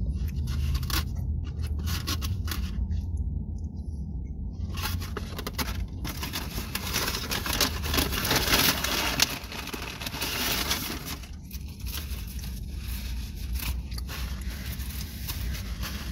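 Paper food wrapping rustling and crinkling as it is handled, loudest in the middle with a sharp crack just after nine seconds, then fainter crackles.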